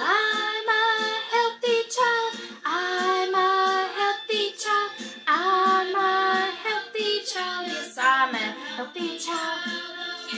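Recorded children's song playing from a CD player: children's voices singing a melody over instrumental backing.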